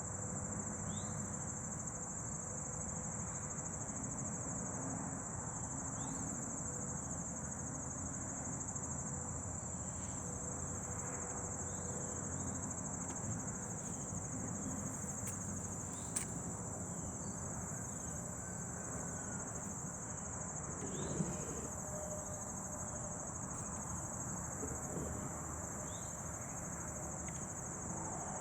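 Insects, most likely crickets, trilling steadily at a high pitch, with short chirps every second or two over a low rushing background. A click sounds about 16 seconds in and a light knock about 21 seconds in.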